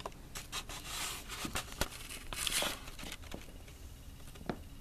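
A cat scrambling about inside a fabric cat tunnel: irregular crinkling and rustling of the tunnel material with scattered light taps, heaviest about a second in and again about two and a half seconds in.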